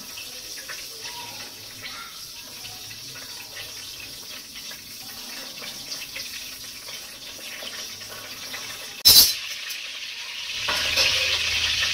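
Mustard seeds heating in oil in a heavy-bottomed kadai (wok), with a faint crackle and scattered small pops as the seeds begin to splutter. A single sharp knock comes about nine seconds in, and a louder sizzle sets in soon after, which marks the tempering reaching its spluttering stage.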